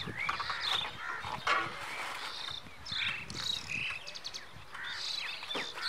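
Birds chirping and calling, many short gliding notes at scattered moments.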